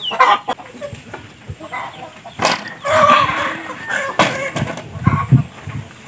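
Chickens clucking, a string of short calls throughout, with a few sharp knocks among them.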